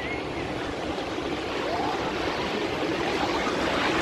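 Small sea waves breaking and washing through shallow water, a steady rushing hiss that swells a little near the end.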